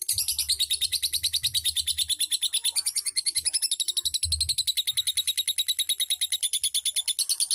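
A lovebird giving a long, unbroken 'ngekek' song: a fast, high, rattling chatter of about ten notes a second, held without a break.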